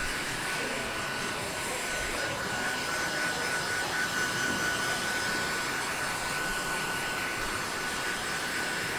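Factory workshop ambience: a steady machine and air hiss with a constant high whine running through it.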